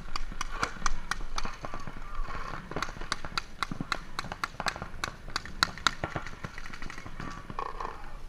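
Paintball markers firing during a match: a quick, irregular string of sharp pops, several a second, with some sharper cracks among them.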